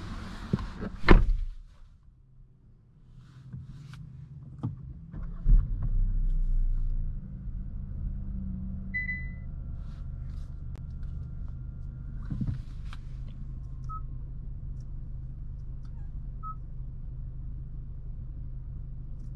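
A car door shuts with a thunk about a second in. A few seconds later the Kia Stinger's 2.5-litre turbocharged four-cylinder starts with a brief flare and settles into a steady idle hum, heard from inside the cabin. A short chime follows, then a couple of soft touchscreen beeps.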